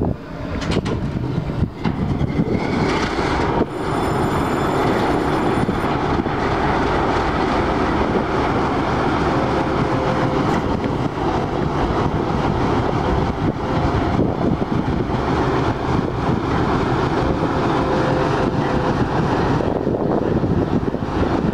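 Indian Railways WDM-3A ALCO diesel locomotive's 16-cylinder ALCO 251 engine running loud and steady, growing louder about four seconds in. A brief high-pitched whine comes in over it for a couple of seconds.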